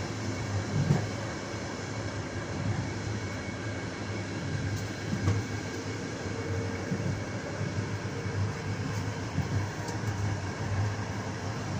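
Railway passenger carriage running along the track, heard from inside the last car: steady wheel-on-rail running noise with a few brief knocks.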